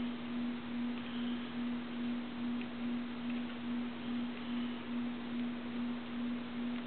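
A steady, low electrical-sounding hum at one pitch, swelling and fading gently about twice a second, with a few faint rustles of tape being smoothed by hand.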